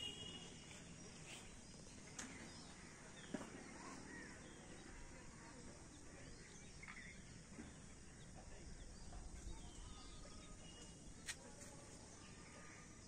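Quiet outdoor garden ambience: a faint steady hiss with occasional distant bird chirps and a few sharp clicks, the loudest about three seconds in and another near the end.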